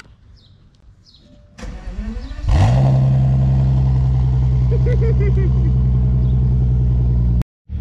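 A car engine starting: a short stretch of cranking noise, then it catches about two and a half seconds in and settles into a steady, even idle hum, which cuts off suddenly near the end.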